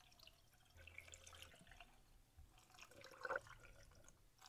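Near silence: faint scattered ticks, with one short soft sound about three seconds in.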